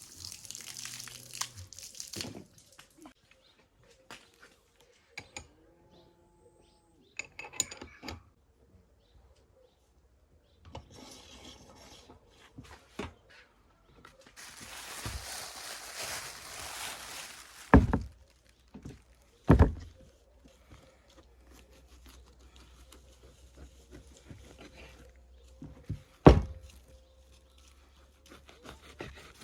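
Food preparation on a wooden board: stretches of rubbing and scraping, with three heavy knocks, the last the loudest.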